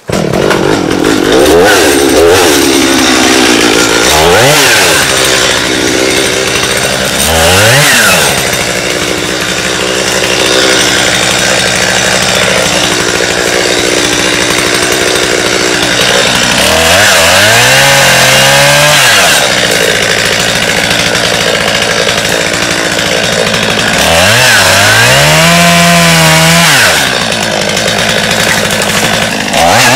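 Stihl MS250 two-stroke chainsaw running loudly, its engine revving up and down several times with steadier stretches at high speed between.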